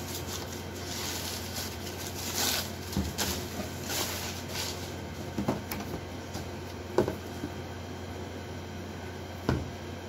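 Tissue paper rustling as it is pulled back inside a cardboard shoe box, followed by two sharp knocks near the end as the sneakers and box are handled and set down.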